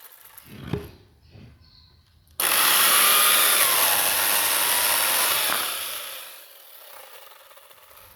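A handheld power tool on wood starts abruptly, runs under load for about three seconds with a wavering whine, then winds down. A single knock comes shortly before it.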